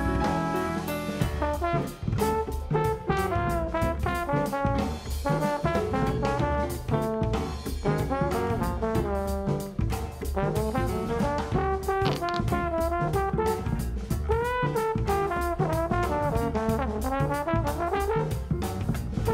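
Upbeat jazzy background music, a brass melody over a steady drum-kit beat.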